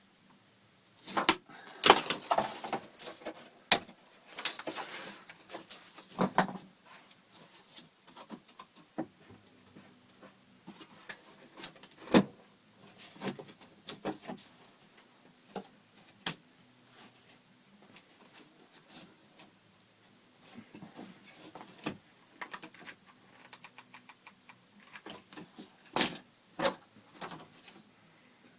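Hands working template strips into place with a hot glue gun: scattered clicks, taps and rustling, busiest in the first several seconds and again near the end.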